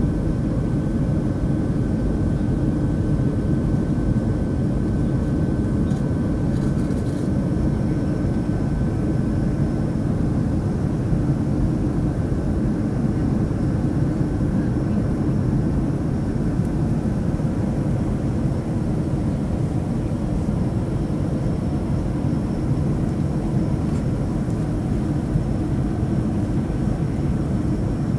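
Steady cabin noise inside a Southwest Airlines Boeing 737 climbing out after takeoff: a dense, even low rumble of the CFM56 turbofans and airflow, with a faint high whine above it.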